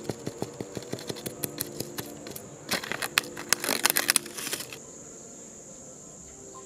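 A small steel knife blade rubbed back and forth by hand on sandpaper: a quick run of short scratching strokes, then a denser burst of scraping about three seconds in that fades to a quiet hiss. A steady high-pitched whine runs underneath.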